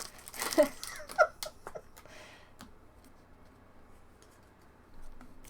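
Baseball trading cards being handled and sorted: soft swishes and light clicks of card stock, busiest in the first second or so, then only a few faint ticks. Brief voice sounds come near the start.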